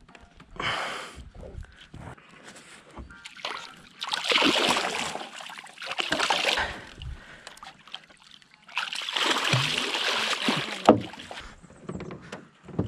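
A hooked catfish splashing and thrashing at the water's surface beside the boat as it is played in and scooped into a landing net. The splashing comes in bursts, the longest about four seconds in and again after about nine seconds, with a single sharp knock shortly before the end.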